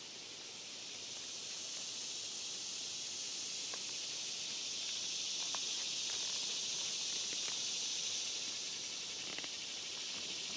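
Steady high-pitched drone of an insect chorus, swelling a little over the first couple of seconds, with a few faint ticks and rustles of tent nylon being handled.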